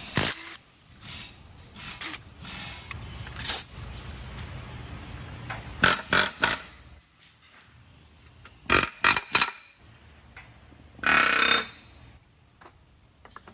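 Metal clanks and knocks in short clusters as a Toyota 7.5-inch clamshell front differential is taken apart, with a half-second rasping burst near the end.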